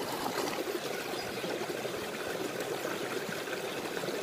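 Shallow stream water trickling steadily over rocks.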